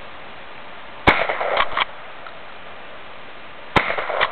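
Two shotgun shots about two and a half seconds apart, each a sharp report followed by a short ragged echo.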